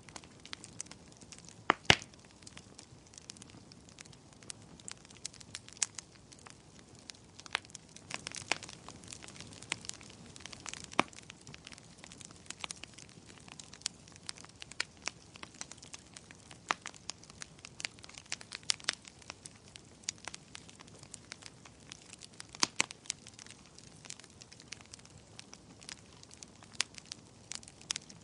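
Wood fire crackling: frequent irregular sharp pops and snaps over a faint hiss, with a couple of louder pops about two seconds in.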